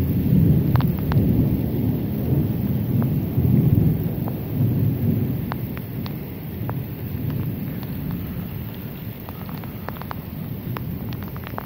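Rolling thunder over steady rain, loudest in the first few seconds and then fading away, with scattered sharp ticks of raindrops striking close by.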